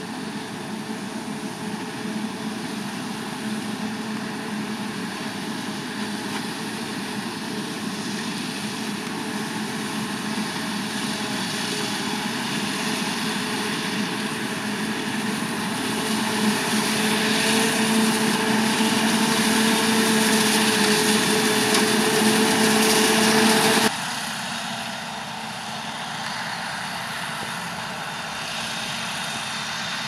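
Claas Jaguar 970 self-propelled forage harvester chopping maize, with a Fendt 720 Vario tractor and silage trailer running alongside: a steady mechanical drone with a low hum, growing louder over the first twenty-odd seconds. About 24 seconds in it drops suddenly to a quieter, more distant running sound.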